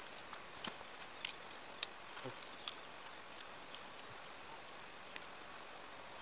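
Faint, scattered sharp clicks of a small knife cutting food held in the hand, about half a dozen in all, over a steady faint hiss.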